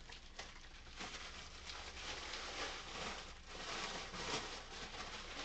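Bubble-wrap packaging crinkling and rustling in irregular bursts as a wrapped plastic bottle is handled.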